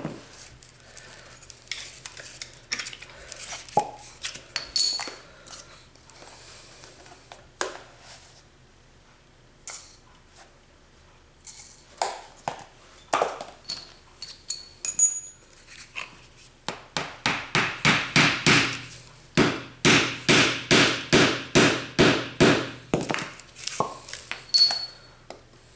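Repeated sharp knocks, about three a second, as a wooden rammer tamps granulated black-powder fuel down inside a paper rocket tube on its spindle. They come in runs at the start and over the last third. In between there are a few light clinks and scrapes of a spoon and plastic funnel as more fuel is added.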